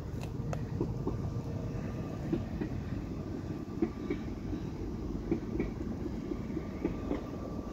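A train passing on a nearby railway line: a steady low rumble with short repeated clicks.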